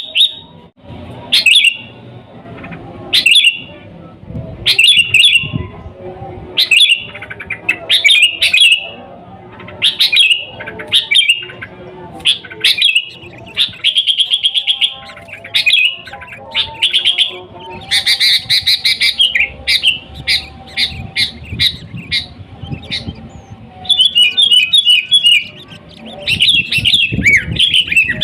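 Sooty-headed bulbul singing loudly: short bubbly phrases repeated every second or so. About two-thirds of the way in, these give way to faster runs of rapid chattering notes.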